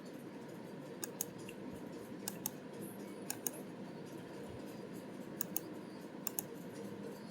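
Computer mouse clicking in short separate clicks, often in quick pairs, over a faint steady hum.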